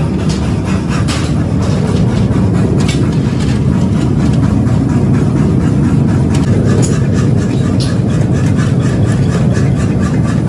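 Forge furnace burning hard, a loud steady low rumble of the fire, with occasional faint clicks of metal.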